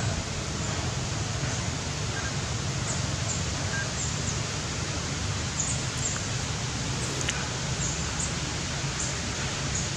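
Steady outdoor background hiss with a low rumble beneath it, dotted with faint, brief high chirps every second or so.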